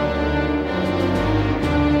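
Orchestral television score music: held chords over a low line that moves to new notes several times.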